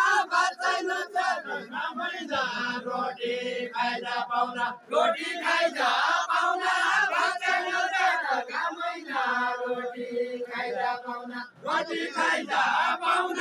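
A group of men singing a Far-Western Nepali deuda folk song together in loud, unaccompanied phrases, with short breaks between lines about five seconds and eleven and a half seconds in.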